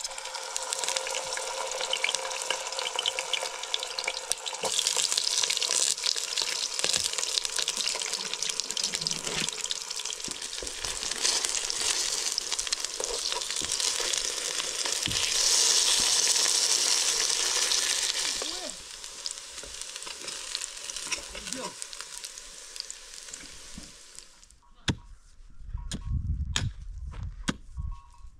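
Pieces of food sizzling as they fry in oil in a metal pot, with a spoon scraping and turning them. The sizzle is strongest for the first eighteen seconds or so, then dies down. Near the end come a few sharp strikes of a pickaxe biting into stony ground.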